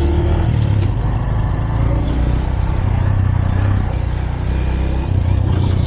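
Honda Super Cub motorcycle on the move, its small single-cylinder engine running steadily under a heavy low rumble.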